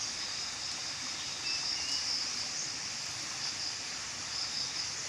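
Outdoor ambience: a steady hiss under a high, pulsing chorus of insects, with a couple of short chirps about a second and a half to two seconds in.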